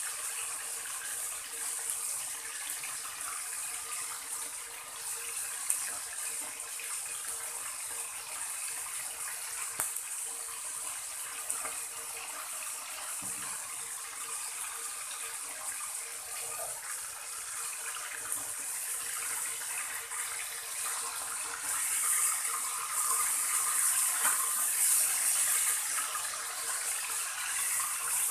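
Pork steak frying in hot oil in an aluminium wok: a steady sizzle with a few small pops. The sizzle grows louder over the last six seconds or so.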